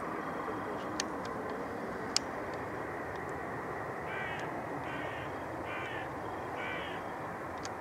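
A crow cawing four times, about a second apart, over a steady background rumble of aircraft noise. Two sharp clicks come about one and two seconds in.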